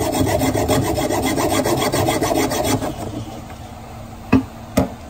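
Hand hacksaw with a fine-tooth metal blade sawing through a Lobophyllia coral skeleton, a rapid rasping back-and-forth that stops about three seconds in as the cut goes through. Two sharp knocks follow near the end.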